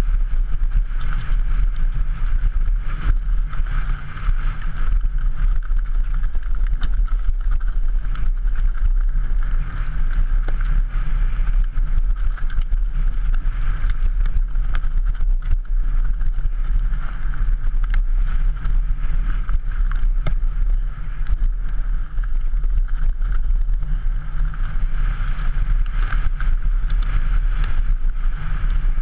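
Downhill mountain bike descending a rough, rocky trail: steady wind rumble buffeting the camera's microphone, with frequent clicks and clatter from the bike rattling over stones.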